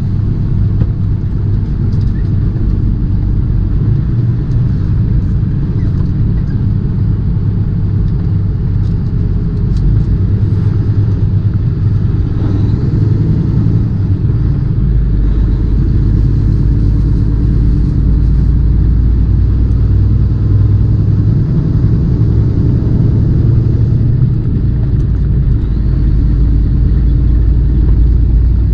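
Tractor-trailer's diesel engine and road noise heard from inside the cab, a steady low drone that grows a little louder about ten seconds in and again a few seconds later.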